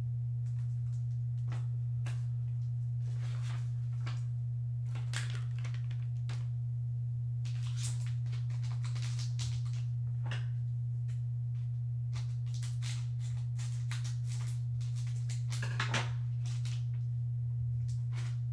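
A steady low hum, the loudest thing throughout. Over it, a foil trading-card pack crinkles and rustles as it is handled and torn open, most busily in the second half, with one sharper crackle a few seconds before the end.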